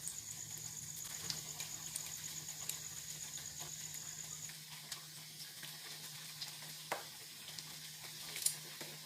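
Breaded buko pies (bread pockets of coconut filling coated in egg and breadcrumbs) frying in hot cooking oil: a steady sizzle with scattered small crackling pops.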